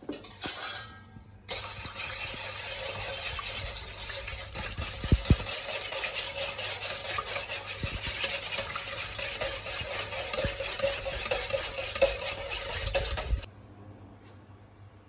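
Electric hand mixer with a whisk attachment beating milk, egg and butter in a stainless steel bowl. The motor switches on about a second and a half in, runs steadily with a few sharp knocks of the whisk against the bowl, and cuts off near the end.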